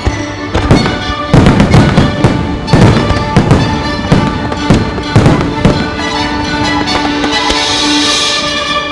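Fireworks bursting: a rapid series of sharp bangs through the first six seconds, fewer after that, over the fireworks show's music soundtrack.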